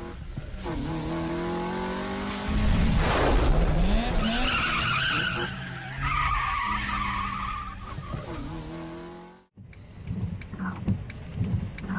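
A car engine revving with tyres skidding and squealing on the road. A loud rush of noise starts about two and a half seconds in. Near the end the sound cuts to a different recording with scattered knocks.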